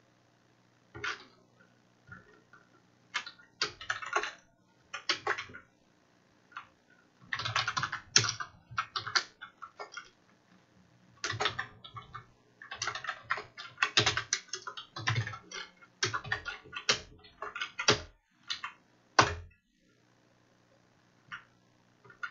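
Computer keyboard typing in irregular bursts of quick keystrokes, separated by short pauses.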